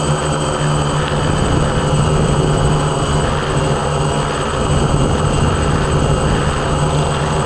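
Hexacopter's six electric motors and propellers running in flight, heard from on board: a steady, loud buzzing hum with a thin high whine over a rush of prop wash.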